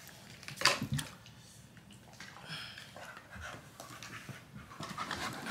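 A young pit-bull-type dog panting, with two sharp knocks about a second in as it paws at a plastic bottle.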